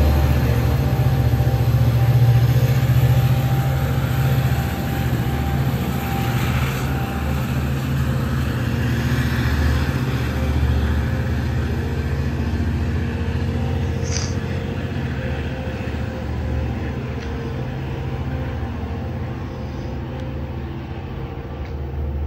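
Passenger train pulling away from the station platform: a steady low rumble and hum of the train moving off, slowly fading as it recedes.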